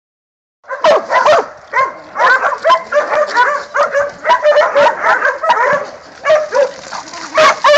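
Several hog dogs barking and yipping in rapid, overlapping volleys as they bay a hog, starting just under a second in.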